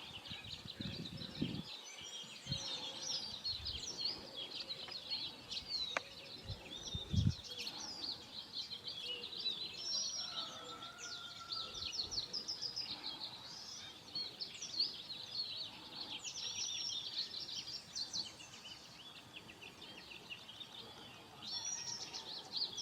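Many small birds chirping and twittering at once, a continuous dense chorus of short, quick calls. A few brief low thumps come in the first several seconds.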